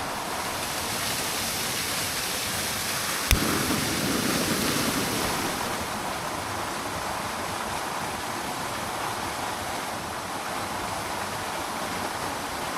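Steady rushing of a small waterfall, with one sharp knock about three seconds in.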